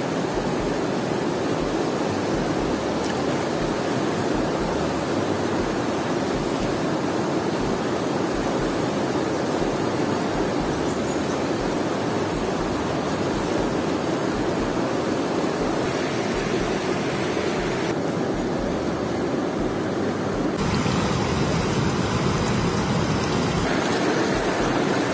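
Fast-flowing river water rushing steadily, the current strong because a dam gate upstream has been opened to release water. A little louder from about twenty seconds in.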